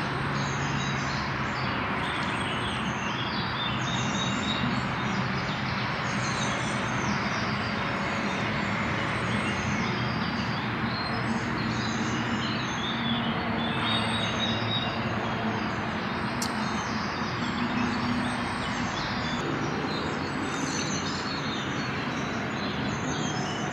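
Woodland birds singing and chirping over a steady background rumble.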